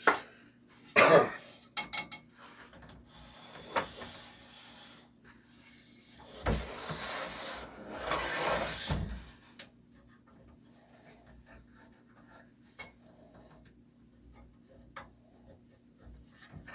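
Unpacking handling of a benchtop scroll saw and its packaging: a few sharp knocks, the loudest about a second in, then a few seconds of scraping and rustling from about six seconds in, with light ticks near the end.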